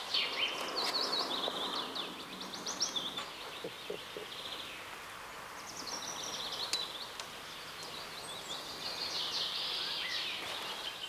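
Small songbirds singing: quick trilled and warbled phrases, one after another, over a low background hiss.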